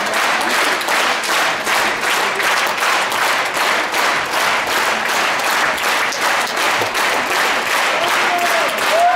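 Large audience applauding steadily: dense, continuous clapping from a full auditorium.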